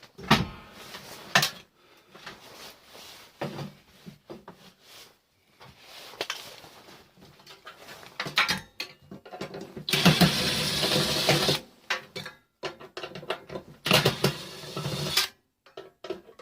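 Metal parts of a microwave being handled and dismantled: scattered knocks and clatters, with two longer noisy stretches of scraping or working at the parts, about ten and fourteen seconds in.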